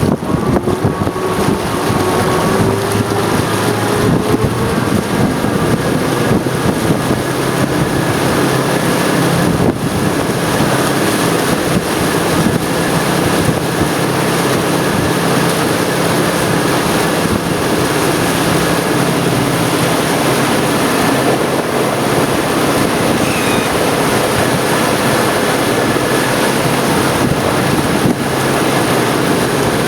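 Yamaha F350 5.3-litre V8 four-stroke outboard running as the boat moves along at steady speed. Its note rises a little in the first few seconds, then holds steady. Wind buffets the microphone and water rushes beneath.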